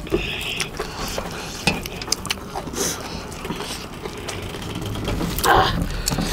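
Hands mixing and scooping a crunchy noodle chatpate mix on metal plates: a steady crackly rustle with many small clicks, and one louder rustle about five and a half seconds in.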